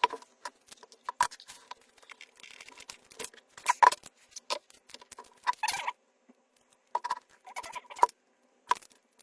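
Irregular clicks, taps and short scrapes of hand tools working on a lithium scooter battery pack, prying out a stack of cells, with a faint steady hum underneath.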